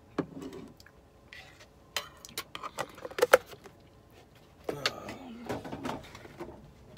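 Handling of a plastic protein-powder tub and scoop: scattered clicks and taps, the loudest a pair of sharp knocks a little past three seconds in, then softer rustling as the tub is moved aside.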